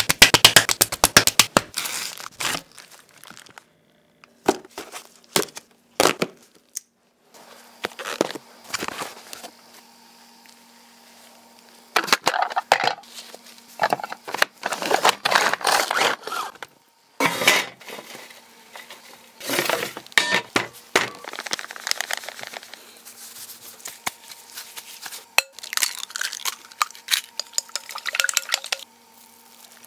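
A run of close-up food-prep sounds cut one after another: bread being torn apart by gloved hands, then eggs beaten fast with chopsticks in a glass bowl, the sticks clicking against the glass. Short silent gaps fall between the cuts.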